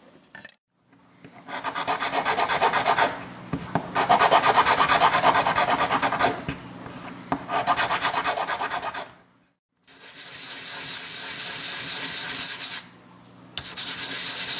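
A small metal hand file rasping in quick back-and-forth strokes across a red 3D-printed plastic miniature base in three short bouts, then a steadier scratching from about ten seconds in as a base is rubbed on sandpaper, with one short break. The filing and sanding are smoothing away the print lines.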